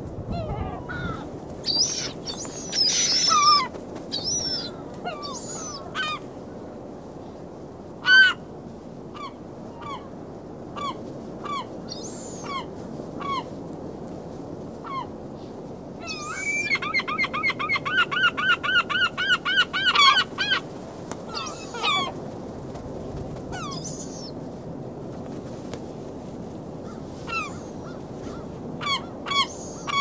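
Gulls calling: scattered single squawks and short calls, then about halfway through a rapid series of about a dozen loud calls over some four seconds, the gull's long call. A steady low wash of surf runs underneath.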